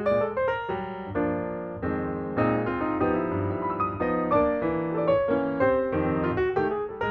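Background piano music: quick runs of notes and chords.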